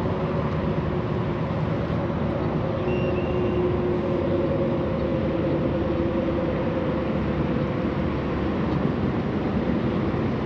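Steady, even rumbling hiss with a faint low hum running through it, and a brief high tone about three seconds in.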